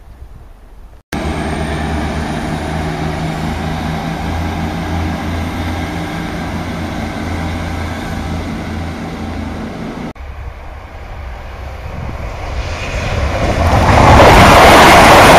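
A First Great Western Class 158 diesel multiple unit runs at the platform with a steady engine note. After a cut, a CrossCountry Class 170 Turbostar diesel unit approaches, and its wheel and engine noise grows very loud over the last few seconds.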